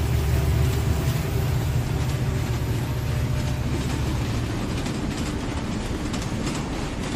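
Battery-powered toy train running on a plastic track: its motor and wheels make a steady low rumble, with faint clicking later on.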